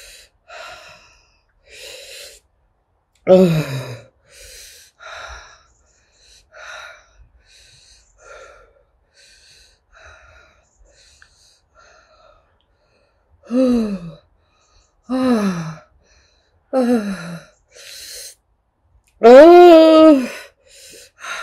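A woman breathing hard through her open mouth in short, airy breaths, drawing in air to cool a tongue burning from Carolina Reaper peppers, like a dog panting. Five moaning out-breaths fall in pitch, the loudest and longest near the end.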